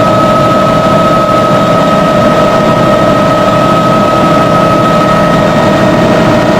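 Helicopter in flight heard from inside the cabin: a loud, steady engine and rotor drone with a steady high whine.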